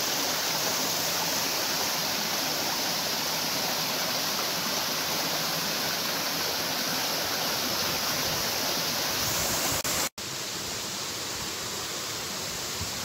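Steady rush of water from a small waterfall and river. It drops out for an instant about ten seconds in, then carries on a little softer.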